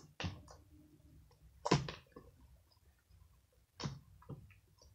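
Hands kneading and stretching slime: a few short, sticky clicks and pops, the loudest a little under two seconds in.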